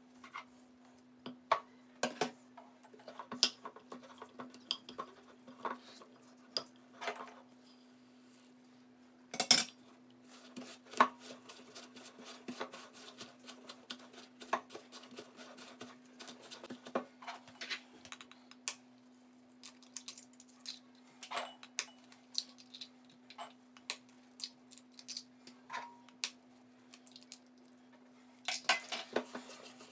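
Spatula and knife clinking, tapping and scraping against a stainless steel mixing bowl as chunks of butter are dropped in and worked, in irregular clicks and knocks over a steady low hum.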